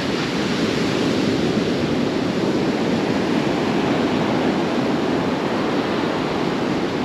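Atlantic Ocean surf breaking and washing on the beach, a steady rush of noise.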